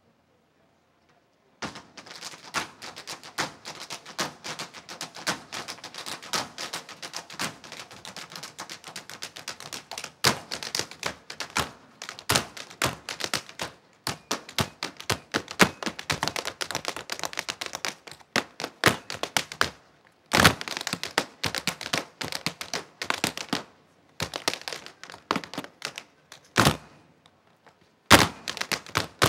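Irish dance hard shoes of three dancers drumming out rapid taps and stamps on a stage floor, with no music. The tapping starts about two seconds in and breaks off briefly a few times near the end.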